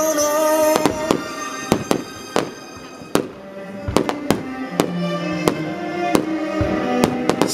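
Aerial firework shells bursting in a quick, irregular string of a dozen or more bangs, over music with long held notes.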